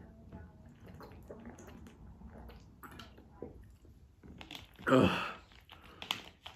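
Man drinking carbonated orange soda from a plastic bottle with quiet swallows, then one loud burp about five seconds in.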